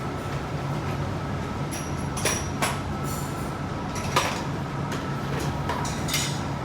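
Hobart conveyor dishwasher running with a steady low hum, broken by a series of sharp metallic clinks and knocks with a short ring.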